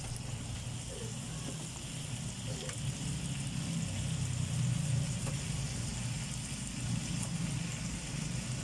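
A low engine-like hum that swells a little around the middle, over faint sizzling and the occasional scrape and tap of a wooden spatula stirring chicken gizzards in a frying pan.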